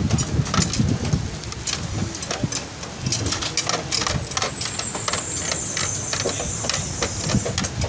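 Metal kebab skewers clicking and clinking against each other and the grill rim as they are turned one after another over a charcoal grill, over a steady low rumble.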